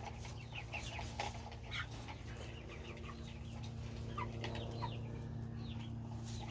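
Young market chickens peeping and chirping: many short, falling chirps scattered throughout, over a steady low hum.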